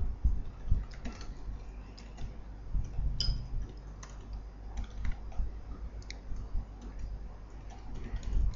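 Computer keyboard typing in short, irregular runs of keystrokes over a low, steady background hum.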